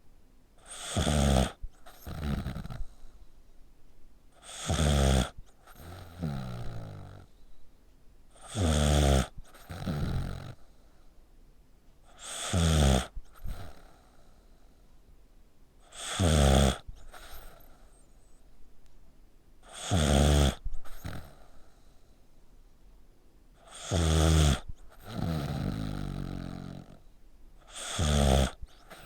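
A sleeping pet snoring loudly, like a person. It gives a loud snore about every four seconds, each followed by a softer, longer breath out, about eight times.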